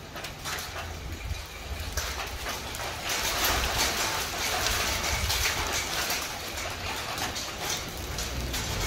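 Hailstones falling with rain: a dense patter of sharp clicking impacts over a hiss of rain, growing heavier and louder about three seconds in as the hail begins in earnest.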